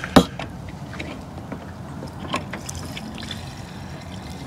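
Gas-and-oil fuel mix being poured into a chainsaw's fuel tank, a steady trickling pour. There is a sharp click near the start and a fainter one about halfway through.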